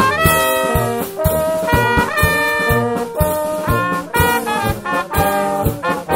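Brass band playing a tune: trumpets, trombones and baritone horns over drums keeping a steady beat.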